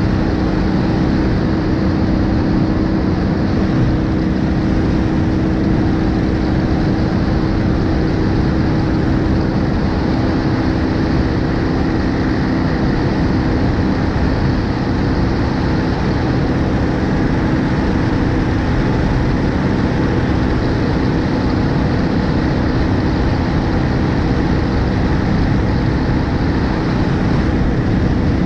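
BMW R1250GS Adventure motorcycle cruising at a steady speed: its boxer-twin engine holds an even note under constant wind rush and tyre noise, picked up by a camera mounted at the front of the bike.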